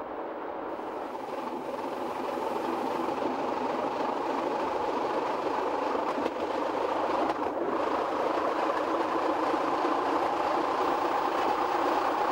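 Metre-gauge electric train running along the track: a steady rumble of wheels on rail that grows gradually louder over the first few seconds.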